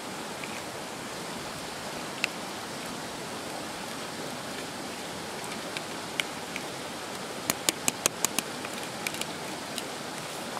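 Drained rice spooned from a woven tray into a pot over oil: a steady hiss with scattered light ticks, and a quick run of about seven sharp taps a little past halfway.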